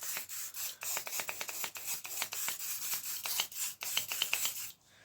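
Aerosol spray oil hissing in many short squirts onto a bicycle bottom bracket. It stops shortly before the end.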